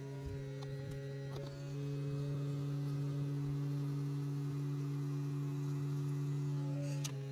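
Electric fuel transfer pump running with a steady hum while diesel is pumped into the excavator's tank, growing slightly louder about a second and a half in.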